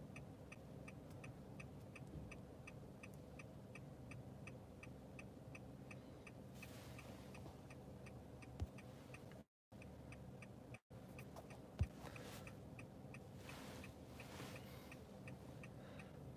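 A car's turn-signal indicator ticking steadily, about two to three clicks a second, faint over a low cabin hum. Two brief knocks come past the middle, and the sound cuts out twice for a moment about ten seconds in.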